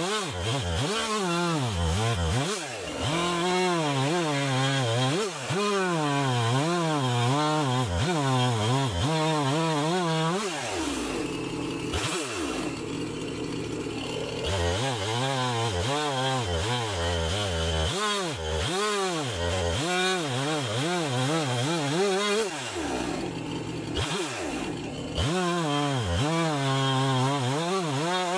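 Gas chainsaw cutting a large ash log with a dull chain, its engine speed wavering up and down as it bogs in the cut. Twice it drops back to idle for a few seconds, about a third of the way in and again past three-quarters, then revs back up into the cut.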